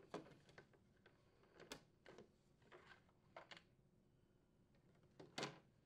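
Near silence with a few faint clicks and rustles of plastic: the rubber grommet of the ice maker fill tube being pushed out of the plastic cover and the old tube pulled out. The clearest click comes about five seconds in.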